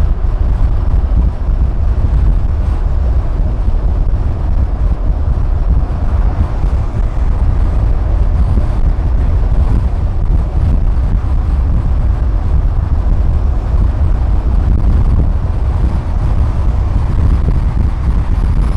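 Steady low rumble of a car driving at highway speed: road and wind noise.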